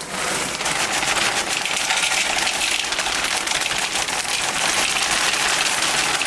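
Dry breakfast cereal pouring from a box into a bowl: a steady, dense rattle of many small pieces falling and hitting each other.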